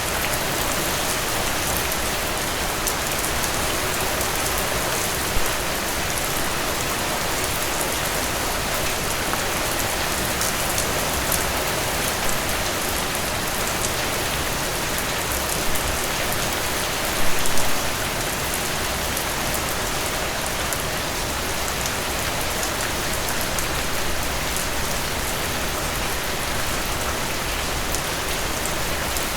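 Steady rain falling, with fine, close drop ticks over an even hiss; a few brief louder splashes stand out about five seconds in, near sixteen seconds and around seventeen seconds.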